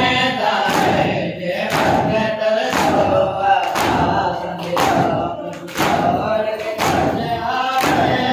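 A crowd of men chanting a noha in unison while beating their chests in matam, the hand-on-chest slaps landing together as a steady beat about once a second.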